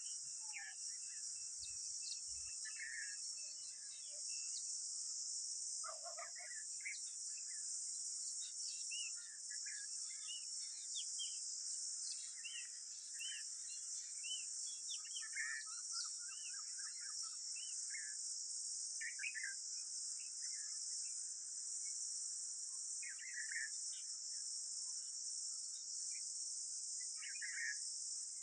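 Steady high-pitched insect chorus, like crickets or cicadas, with many short bird chirps and calls scattered over it.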